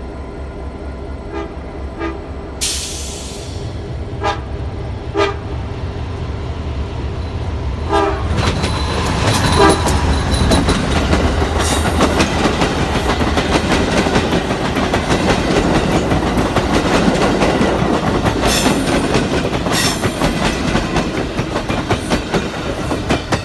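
VIA Rail GE P42DC diesel locomotive approaching and sounding its horn. About eight seconds in it reaches the microphone, and a loud rumble follows as its Renaissance passenger cars roll past close by on the rails.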